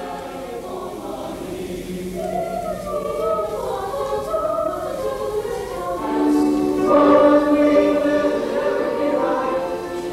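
Mixed choir of male and female voices singing together in sustained chords, swelling louder about six seconds in.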